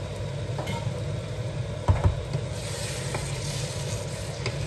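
Tomato sauce sizzling in a large frying pan as a wooden spoon stirs it, with two sharp knocks about two seconds in. A steady low hum runs underneath.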